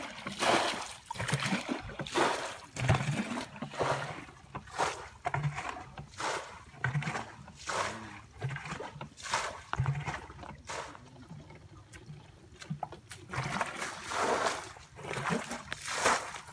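Water being bailed from a muddy ditch with a plastic bucket: repeated scoops and splashes of muddy water tipped out onto the ground, about one a second, with a short lull shortly before the end.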